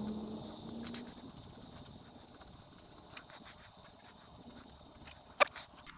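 Razor scraper scraping old gasket material off the carburetor mounting flange of a Briggs & Stratton 8 HP engine: faint, quick, irregular scratches and small clicks, with one sharper click near the end.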